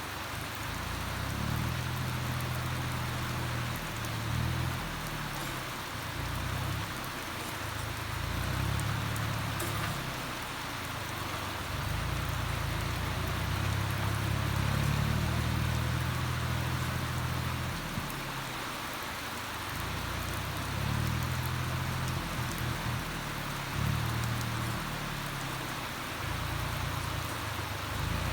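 Steady rain falling, with a Kubota tractor's diesel engine running underneath, its low drone swelling and easing every few seconds as it works.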